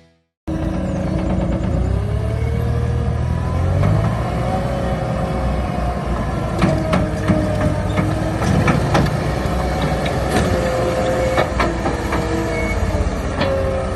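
John Deere 260 skid steer's diesel engine running, its pitch rising about two to four seconds in and then holding at a higher speed. Sharp knocks and clanks from the machine come through repeatedly in the second half.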